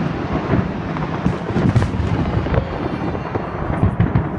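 Distant aerial firework shells bursting in rapid succession, their booms running together into a continuous rumble, with a few sharper cracks standing out near the middle and again near the end.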